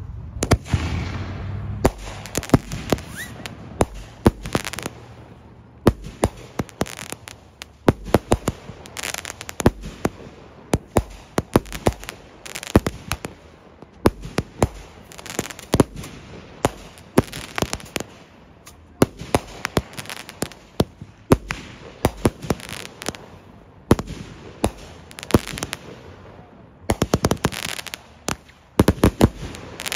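F'N Mint firework firing a rapid barrage of sharp pops and crackling bursts overhead. The pops come in clusters with short lulls and get thicker near the end.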